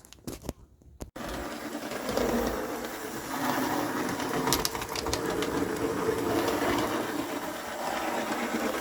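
HO-scale Proto 2000 GP20 model diesel locomotive running, its electric motor and freshly replaced axle gears whirring steadily. The whirr starts about a second in, after a few faint clicks.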